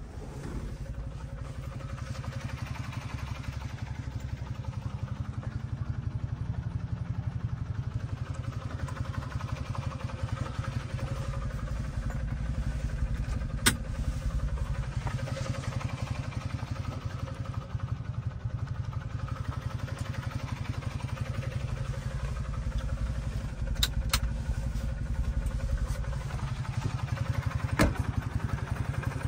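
Subaru Sambar kei truck's small engine running as it drives, heard inside the cab, with its pitch rising a few seconds in as it speeds up. A few sharp clicks come through, one near the middle and a couple near the end.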